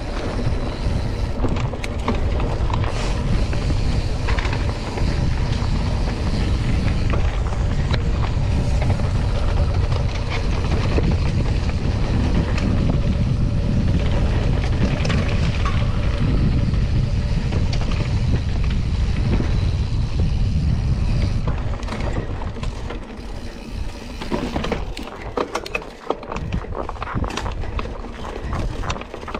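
Mountain bike ridden fast over a dirt trail: a steady, loud rush of low wind and tyre noise, which drops after about twenty seconds into a quieter, uneven stretch full of sharp clicks and rattles.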